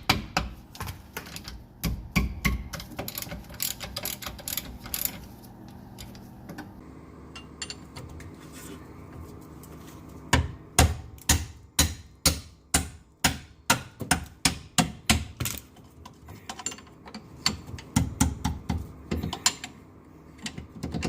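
Ratchet wrench clicking in repeated strokes as brake caliper and caliper-mount bolts are broken loose. The clicks go quieter for a few seconds, then come loud and even, two or three a second, near the middle.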